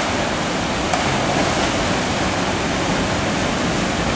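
Steady rushing of a small waterfall and whitewater rapids pouring through a rock gorge.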